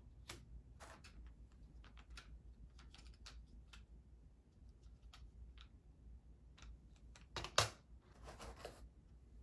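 Light clicks and taps of small plastic microscope accessories being handled and set down from a hard carrying case. One sharper clack comes about three-quarters of the way in, followed by a brief rustle.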